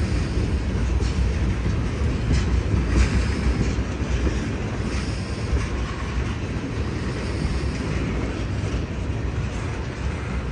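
Freight train of tank cars rolling past close by: a steady rumble of steel wheels on the rail, with a click now and then as wheels cross rail joints.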